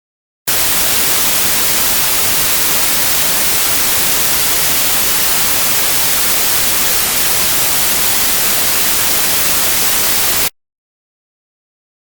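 Steady hiss of static white noise, like a television tuned to no channel, switching on abruptly about half a second in and cutting off sharply about ten seconds later.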